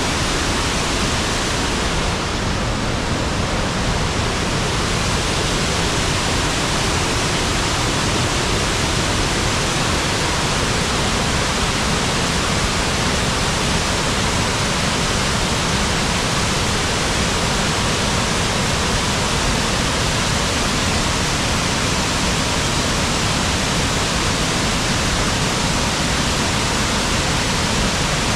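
Waterfall pouring with a steady, unbroken rush of falling water.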